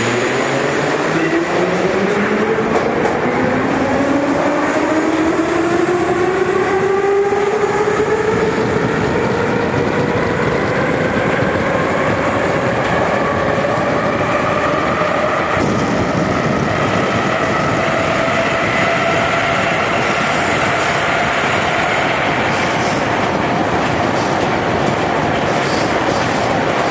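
Moscow metro train pulling away from a station: the traction motors whine in several tones that rise steadily in pitch as the train accelerates, levelling off about fifteen seconds in as it runs at speed through the tunnel, with the steady rumble of the wheels on the rails.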